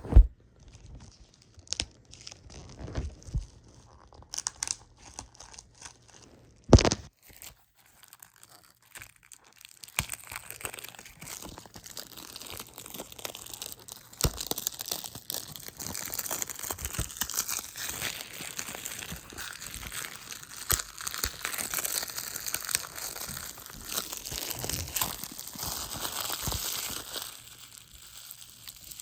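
Packaging being handled and torn open: scattered clicks and knocks at first, then about ten seconds in a long stretch of steady crinkling and tearing, typical of plastic wrap coming off a Blu-ray case.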